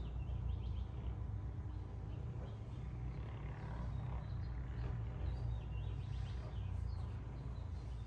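Steady low background rumble with faint, scattered bird chirps.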